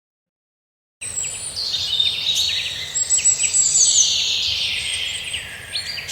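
Mongoose chattering: a run of shrill chirps and twitters, some sliding down in pitch, over a steady hiss, starting about a second in.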